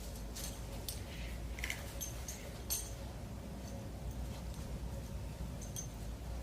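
A handful of light, sharp clicks and clinks, clustered in the first three seconds with one more near the end, over a steady low hum.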